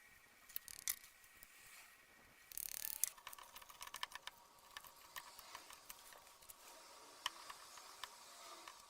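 Scattered light clicks and rattles of small parts being handled during hand work on the fan, with a short scraping burst about two and a half seconds in.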